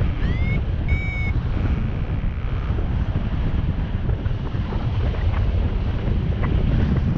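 Airflow of a paraglider in flight buffeting the camera microphone: a steady, loud low rumble of wind noise. Two short high tones, the first rising and the second steady, sound about a second in.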